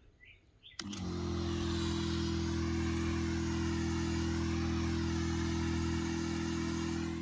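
Battery-powered backpack sprayer's electric pump switching on with a click about a second in, then running with a steady hum while spray hisses out of the nozzle. It starts to die away at the very end.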